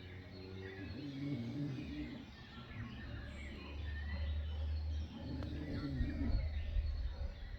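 Small birds chirping and singing, with a person snoring: two low, drawn-out snores, about a second in and again around five seconds in, over a steady low rumble.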